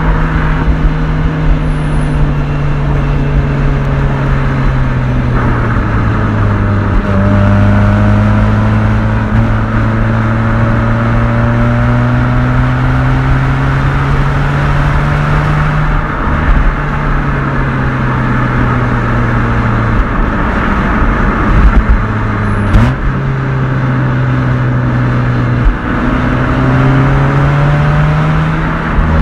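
A Mazda RX-8's naturally aspirated twin-rotor rotary engine (13B Renesis) running at mid-range revs through its muffler while being driven hard down a winding road. The revs drop at a few points and then climb slowly again, and there is a sharp click about three-quarters of the way through.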